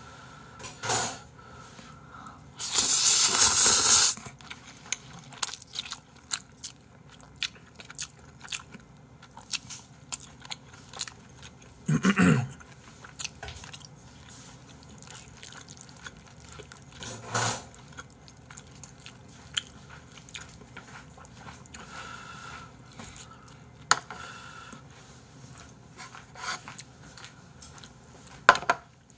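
A person eating Chapagetti black-bean instant noodles close to the microphone: wet chewing and smacking with many small clicks. There is one long, loud slurp of noodles about three seconds in, and a few shorter ones later.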